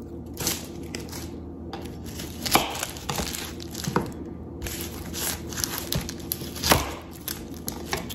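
Papery skin being peeled and torn off a sweet onion, crinkling, with irregular knocks and scrapes of a kitchen knife against a plastic cutting board; the loudest knocks come about two and a half seconds in and again near the end.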